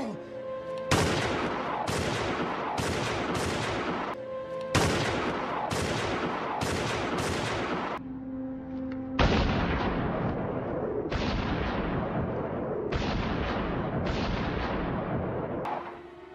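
A long series of gunshots, one man firing again and again, about one shot a second, each with a ringing echo. They pause briefly about eight seconds in, then carry on and stop just before the end, with faint music beneath.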